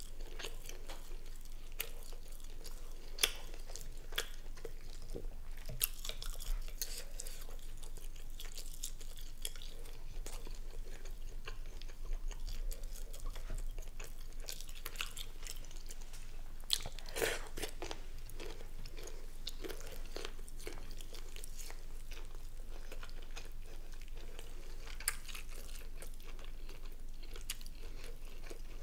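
Close-miked chewing and mouth sounds of someone eating a saucy seafood boil, with many short wet clicks scattered throughout and a few louder ones.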